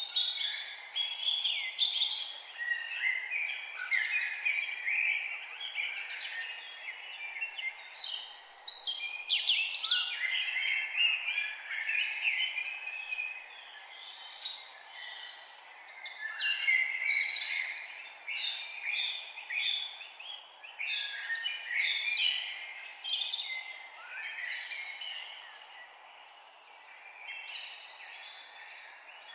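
Several birds singing and chirping at once, short overlapping calls and quick up-and-down whistles, over a faint steady background hiss. The chorus thins out briefly twice and picks up again.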